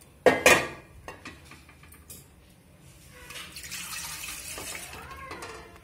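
Two sharp metal clanks as an aluminium pot is set down on the gas stove's grate about half a second in. About three seconds in, a stream of water starts pouring into the aluminium steamer pot, splashing onto the bottom and tailing off near the end.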